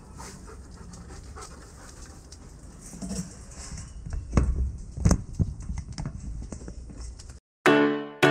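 Rottweiler panting, with a few loud thumps and splashes around the middle. A short silence, then music with piano chords starts near the end.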